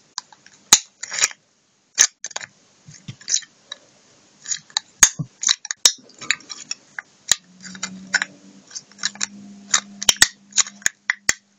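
Needle-nose pliers folding the cut rim of an aluminium soda-can bottom inward, bit by bit: irregular sharp clicks and crinkles of the thin metal being bent.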